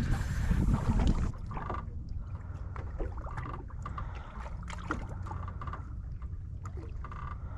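Water lapping and wind around a small boat on open water. It is louder for about the first second, then settles to a low steady rumble.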